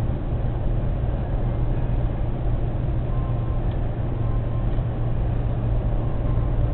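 Steady low rumble of a car driving at motorway speed, heard from inside the cabin: engine and road noise with no change in pace.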